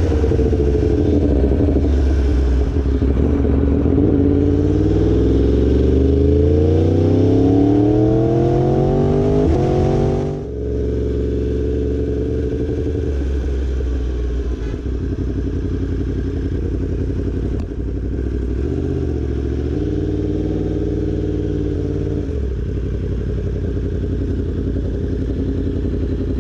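2018 Yamaha YZF-R1's crossplane inline-four engine being ridden, its pitch climbing steadily under acceleration for about ten seconds. It then drops suddenly as the throttle closes, and settles into a steadier, lower drone with small changes in speed.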